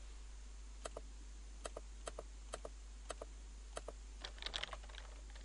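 Computer mouse clicking about six times, each click a quick double tick of press and release, followed about four seconds in by a short run of keyboard typing.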